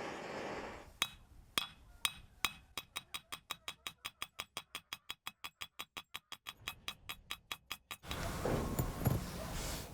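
A few separate sharp metallic clicks, then a fast, even run of metallic taps at about five a second for around five seconds that stops suddenly, followed by a rougher stretch of handling noise.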